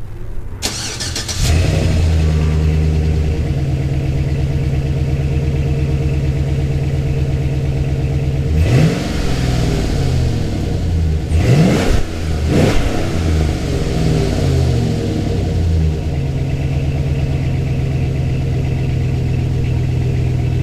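A 2007 GMC Sierra's 5.3-litre V8 cranks and starts about a second in, then idles steadily. Its revs are raised and dropped a few times near the middle before it settles back to idle. The engine is being checked after a new throttle position sensor was fitted.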